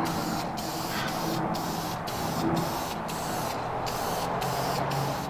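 Aerosol spray can spraying a finish coat onto a wooden box, a steady hiss broken by brief pauses about every half second.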